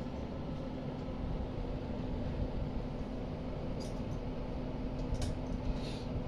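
Bajaj electric fan heater (blower) running steadily, a constant fan rush with a low hum, blowing hot air onto a rubber balloon held at its grille. Three short squeaks about four, five and six seconds in, from the balloon rubber rubbing.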